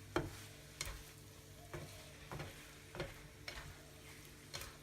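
Instant noodles being stirred in a hot frying pan: a utensil scrapes and knocks against the pan about seven times at uneven intervals, over a faint sizzle and a low steady hum.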